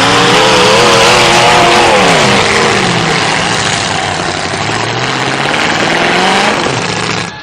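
Demolition derby cars' engines revving loudly, the pitch wavering, dropping about two seconds in and climbing again near the end.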